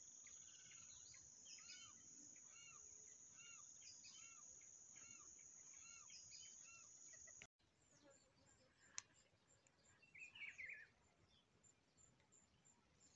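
Faint woodland ambience: a steady high insect drone and short arched bird chirps repeating about twice a second, broken off by an abrupt cut about halfway. After the cut the drone is gone and it is quieter, with a single sharp click and then a brief bird call.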